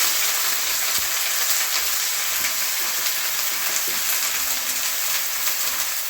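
Washed omena (small Lake Victoria sardines) dry-frying in a pan without oil: a steady sizzle with scattered small crackles.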